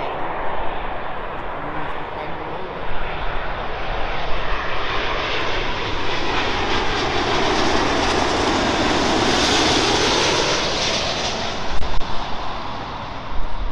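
Jet engines of a British Airways Boeing 777-200 on final approach. The engine noise builds to its loudest as the airliner passes low overhead, about two-thirds of the way through, then eases off.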